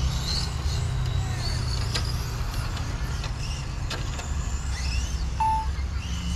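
Wind rumbling on the microphone, with faint high chirps throughout. Near the end a short electronic beep sounds twice, about a second apart: a low-battery alarm, the battery having run flat.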